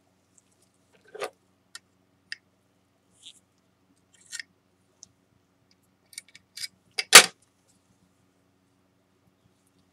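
Scattered light clicks and short scrapes of a spatula and small tools being handled on a work tray while mixing a paste, with one sharp, much louder knock about seven seconds in.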